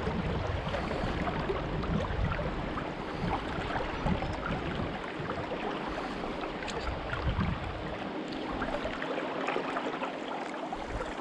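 River water flowing and babbling, a steady rush dotted with small splashes, with intermittent low rumbles underneath.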